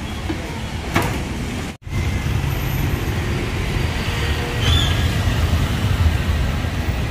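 Street traffic going by: a steady low rumble of engines and tyres, with a single knock about a second in and a brief dropout about two seconds in.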